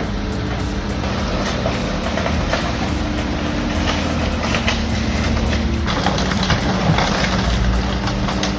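Heavy industrial shredding machine running under load: a steady low drone with crunching and knocking as material is broken up, the knocks coming thicker from about six seconds in.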